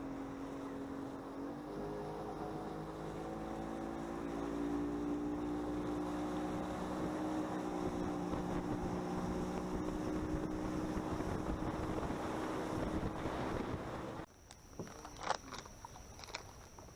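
Boat's outboard motor running steadily under way, its pitch stepping up slightly a second or two in and getting louder a few seconds later. Near the end the motor sound cuts off suddenly, leaving a few sharp clicks and knocks.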